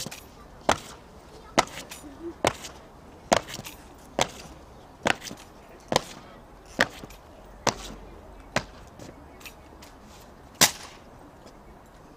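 Boots of a three-man honour guard striking stone paving in unison at a slow ceremonial march, one sharp stamp a little under once a second. The march ends with one last, loudest strike as they halt.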